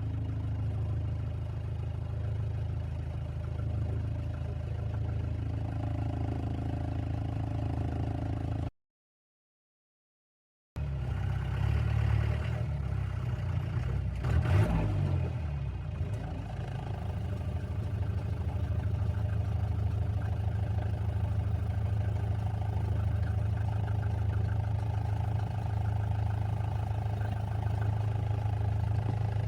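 Off-road vehicle's engine running steadily over a rough track, with a brief clatter about halfway through. The sound cuts out completely for about two seconds roughly a third of the way in.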